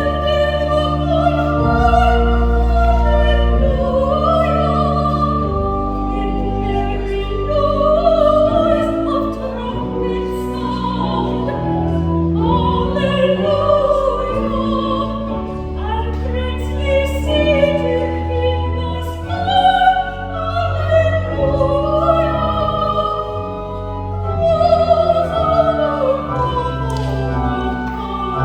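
Soprano singing with a wide vibrato over organ accompaniment, the organ holding sustained chords above a low bass line.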